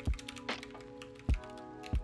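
Background music: sustained chords over a steady beat of low kick-drum thumps with sharper percussive clicks between them.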